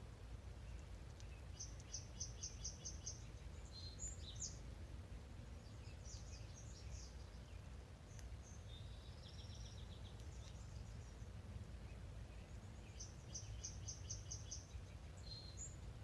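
Songbirds singing: a song of about seven quick high notes heard twice, once a couple of seconds in and again near the end, with other short chirps and a buzzy run of notes between them, over a low steady rumble.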